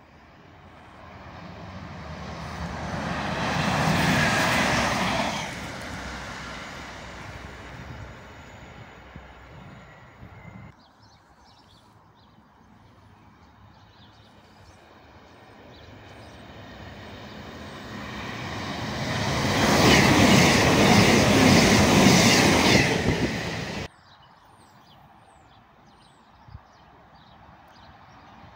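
Two diesel multiple units go by in turn. A Class 197 rises to a peak about four seconds in and fades away. Then a Class 221 Super Voyager's diesel-electric engines and wheels build to a loud rush that cuts off suddenly near the end.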